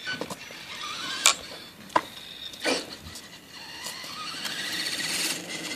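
Radio-controlled car driving on asphalt, its motor and tyre noise growing steadily louder over the last two seconds. Three short, sharp knocks or squeaks come in the first three seconds.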